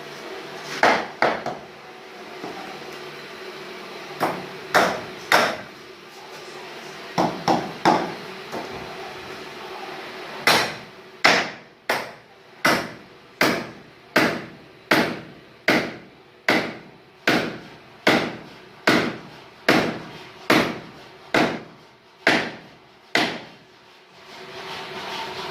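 Hammer striking wood during carpentry: a few scattered blows, then about twelve seconds of steady hammering at a little over one blow a second, stopping near the end.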